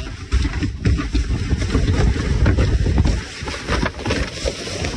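Plastic kayak hull sliding fast down a snowy hillside, scraping and rattling over snow and dry grass, with wind rumbling on the microphone. About three seconds in the low rumble drops and the hull brushes through tall dry grass.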